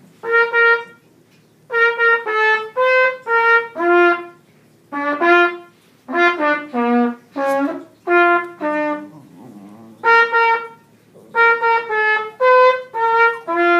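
Trumpet played in short phrases of separate held notes, with brief pauses between the phrases.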